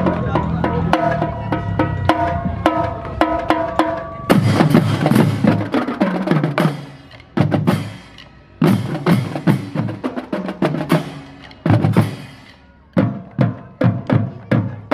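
Children's marching percussion section playing a drum-battle cadence on snare drums, multi-tenor drums, bass drums and crash cymbals. A lighter, ringing rhythmic passage leads off, and about four seconds in the whole section comes in with loud accented hits, playing in short phrases broken by brief pauses.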